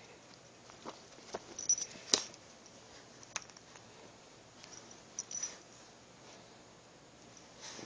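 Puppy chewing a plush squeaky spider toy: short, high squeaks from the toy's squeaker about two seconds in and again around five seconds, with scattered small clicks.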